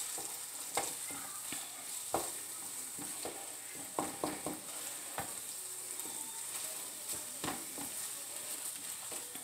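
Wooden spoon stirring sausage, diced potatoes and eggs in a frying pan while the eggs scramble, the food sizzling steadily. The spoon scrapes and knocks against the pan at irregular moments, about once a second.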